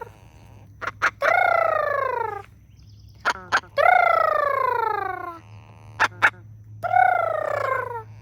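A bird giving a long call that falls in pitch three times, each call about a second and a half long and preceded by a pair of sharp clicks; the third call is still going at the end.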